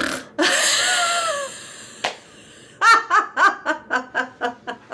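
A person doing snore laughter, laughing out after snoring in through the nose. First comes a long breathy laugh, then from about three seconds in a quick run of short ha-ha bursts, about five a second, that trail off.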